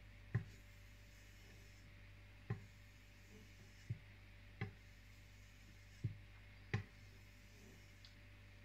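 A kitchen knife stropped with its flat side on a leather strop: about six soft, short knocks as the blade is set down and drawn along the leather, over a faint steady hum.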